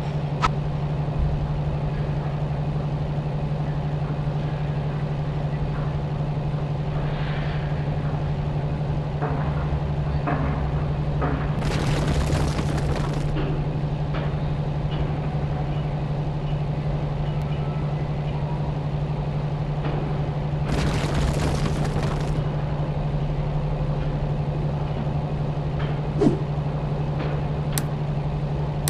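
A motor running with a steady, even hum, with a few sharp clicks and two short bursts of high hiss.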